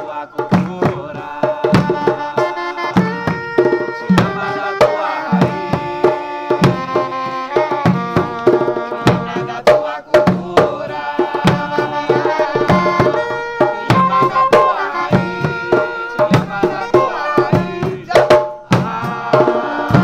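Music led by hand drums beating a steady low rhythm, with a melodic instrument playing over it.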